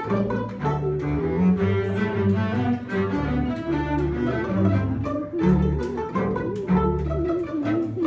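Small string ensemble of violins, cello and double bass playing together: a bowed melody with vibrato over repeated low bass notes.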